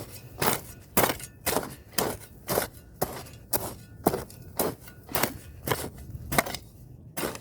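Hand hoe chopping into farm soil in steady strokes, about two a second.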